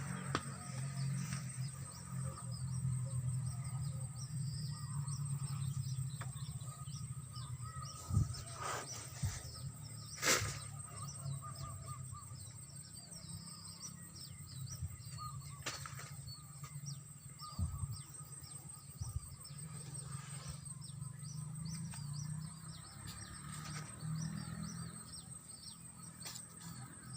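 Many short bird chirps over a steady high-pitched whine and a low rumble, with a few sharp knocks about 8, 10 and 18 seconds in.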